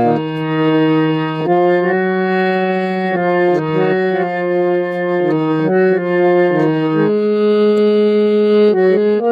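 Harmonium playing an instrumental interlude with a slow melody over held chords that change every second or so, one chord held longer near the end.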